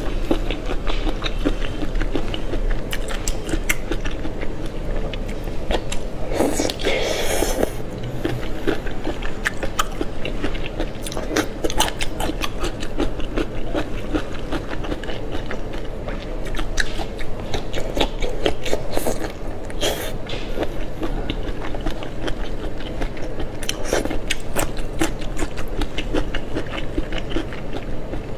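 A person eating peeled shrimp coated in chopped chili sauce: repeated biting and chewing, with many small mouth clicks. Louder bites come now and then.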